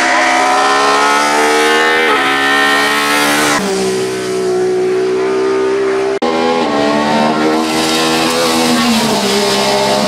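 Ford Escort RS 2000 Mk2 hillclimb car's engine at full throttle, loud and hard-revving. Its pitch climbs and falls back several times at gear changes, with a sudden break about six seconds in.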